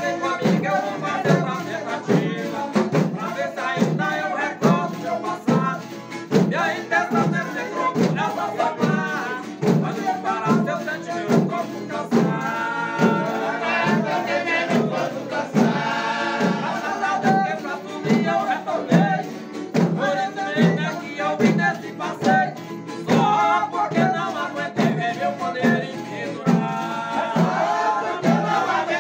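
A group of men singing a folia song in chorus, accompanied by hand drums and a tambourine beating a steady pulse of about two strokes a second.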